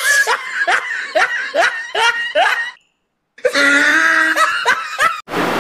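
A man laughing in a run of quick, short bursts for about two and a half seconds; the sound cuts off abruptly, then his voice comes back for another couple of seconds.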